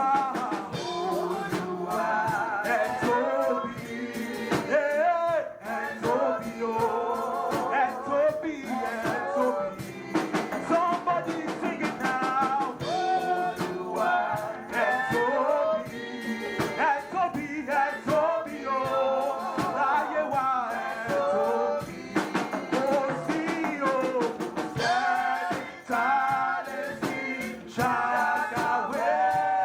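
Worship song sung live, voices over a drum kit and band instruments keeping a steady beat.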